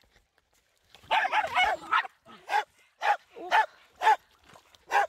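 A dog barking: a quick flurry of overlapping barks, then single barks about twice a second.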